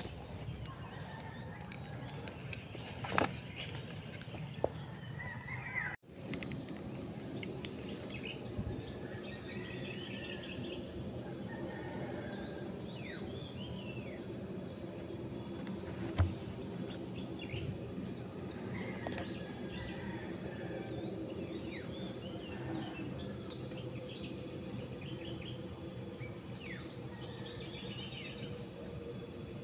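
Steady insect chorus with a thin, continuous high trill, broken by a brief dropout about six seconds in. A few short knocks, the loudest about sixteen seconds in, stand out over it.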